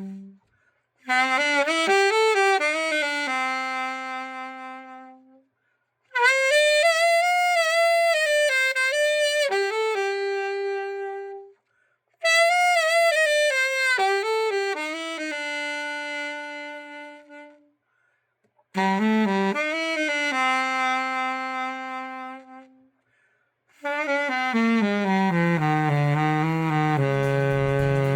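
Vintage Yamaha YAS-62 alto saxophone played solo after a full overhaul, in five short phrases with slides between notes, each ending on a held note and followed by a brief pause. The last phrase descends into the low register near the end.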